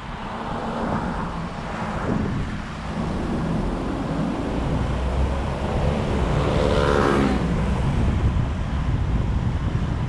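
Road traffic noise with wind rumbling on the microphone while driving along a city street. About six to seven seconds in, a passing vehicle's engine gets louder and rises in pitch, then fades.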